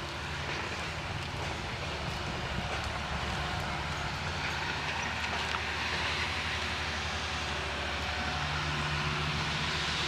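A heavy engine running steadily with a low drone and a broad noisy rush, slowly growing louder.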